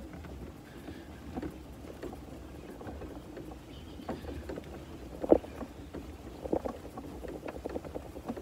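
Electric golf cart driving over uneven ground: a steady low rumble with scattered rattles and knocks from the cart, and one loud knock a little past halfway.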